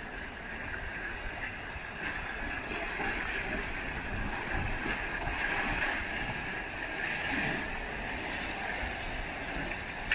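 Steady wash of sea waves against a rocky shore, with some wind.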